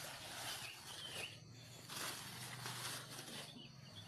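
Outdoor ambience: a steady hiss with a few short bird chirps, about half a second to a second in and again near the end.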